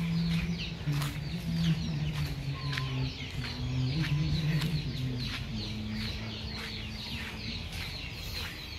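Chickens clucking and peeping in a farmyard, with many short high chirps repeating throughout. A low steady hum runs underneath, stepping up and down in pitch.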